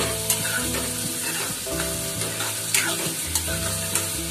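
Chopped tomatoes and onions sizzling in a metal kadhai while a metal spatula stirs them, with several sharp scrapes of the spatula against the pan. Soft background music plays under it.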